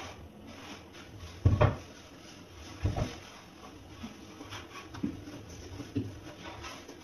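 Thumps and knocks of a whole pumpkin and its cut pieces being handled on a wooden worktop while the pumpkin is hollowed out: two heavy thumps about a second and a half and three seconds in, then lighter knocks.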